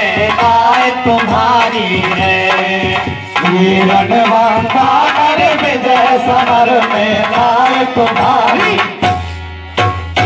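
Instrumental interlude of kirtan folk music, amplified through a DJ loudspeaker: a melodic instrument over steady hand-drum playing. The music thins out briefly near the end, then picks up again.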